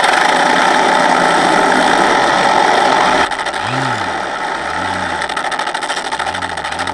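Electronic engine sound from an ESS-AIR sound system, played through speakers in a Hangar 9 PT-19 RC plane as a simulated period-correct engine running steadily, with the electric motor spinning the propeller. About three seconds in the sound changes and drops slightly in level as the unit switches to a simulated machine-gun sound effect.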